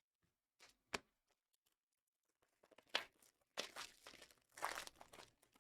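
Trading card pack wrapper being torn open and crinkled, faint, after a couple of sharp clicks.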